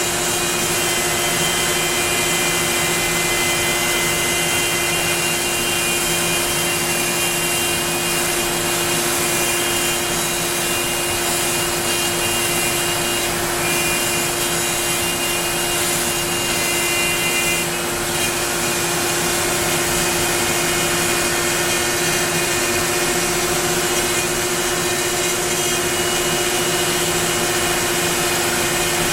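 Onefinity CNC router cutting wood: the router spindle runs with a steady whine over a constant rushing noise, with small shifts in the higher tones as the bit moves through the cut.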